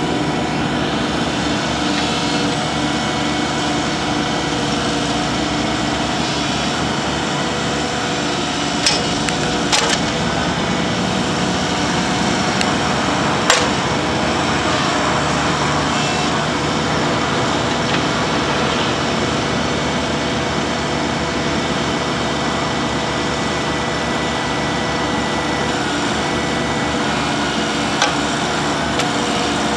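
Kubota D722 three-cylinder diesel of a Bobcat 323J compact excavator running at a steady speed, with a few sharp clicks or knocks over it, the loudest near the middle.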